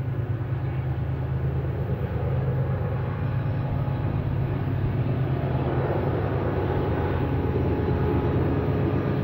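Train running, a steady low mechanical rumble that grows a little louder over the first few seconds.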